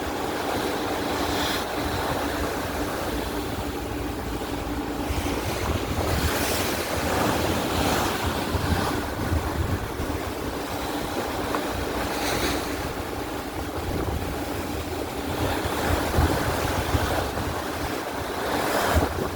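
Sea waves rushing and splashing around a boat under way, with wind buffeting the microphone; the wash swells into louder splashes every few seconds. A faint steady hum sits under it for the first few seconds.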